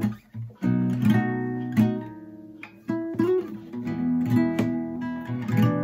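Harley Benton HBO-850 roundback nylon-string guitar played acoustically, not plugged in: a string of chords strummed and let ring, with a short break just after the start.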